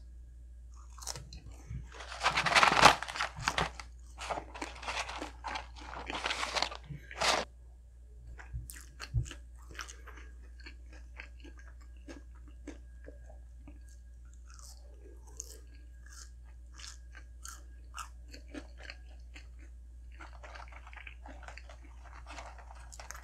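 A person biting into and chewing a Big Mac made with quarter-pounder patties, close to the microphone. The chewing is loud over the first several seconds, then softer chewing with small clicks.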